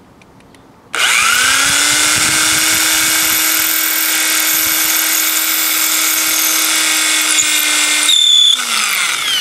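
Electric drill starts about a second in, its motor whine rising quickly to a steady pitch as the bit bores through cement board. Near the end the bit breaks through and the drill is let off, its whine falling as the motor winds down.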